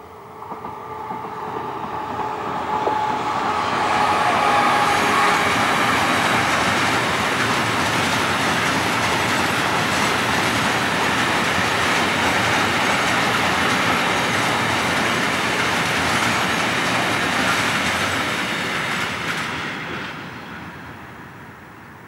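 Freight train of covered freight wagons, hauled by an E.405 electric locomotive, passing close by at speed. The noise of the wheels running over the rails builds over the first few seconds, holds steady, and fades away in the last couple of seconds.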